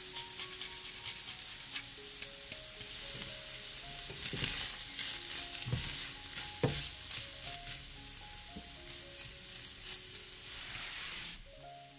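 Food sizzling in hot oil in a frying pan, with a few scrapes of a spatula stirring it about midway; the sizzle drops away shortly before the end.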